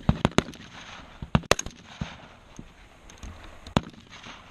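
M4 carbines firing single shots on a rifle range: a string of sharp cracks at irregular spacing, some loud and close, others fainter and farther off.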